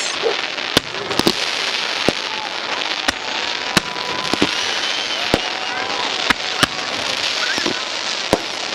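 Fireworks display: about a dozen sharp bangs of bursting shells, irregularly spaced, over a steady crackle, with a few tones gliding in pitch.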